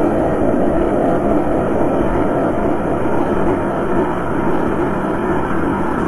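Dense, steady rumbling noise drone, heavy in the low and middle range with little treble, from a dark ambient noise recording.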